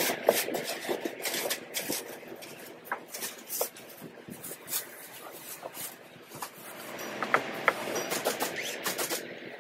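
Heavy plastic bag rustling and crinkling in irregular crackles as it is bunched and folded down into a cardboard box. The crackling is busiest at the start and again near the end.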